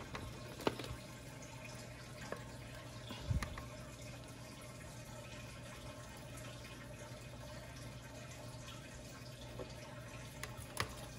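Quiet work sounds of soldering a wire onto a small toy motor's terminal: a few faint scattered clicks and a soft knock about three seconds in, over a low steady hum.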